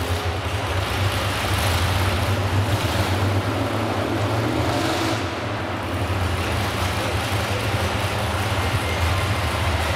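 Modified pulling tractor's engines idling with a steady deep rumble, the tractor standing at the end of its pull.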